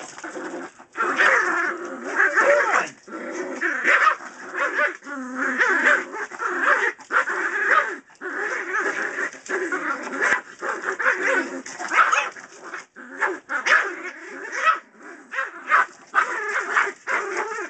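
Yorkshire terriers, an adult and two puppies, yipping, whimpering and barking in play as they tug on a toy, in near-continuous bursts with short gaps.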